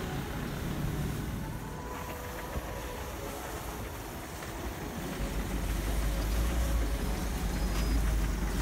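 Off-road vehicle engine running steadily, with a deep low rumble growing louder from about halfway through.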